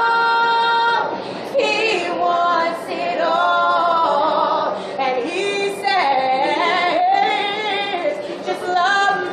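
Two women singing gospel a cappella, voices bending and melismatic, with a long held note in the first second.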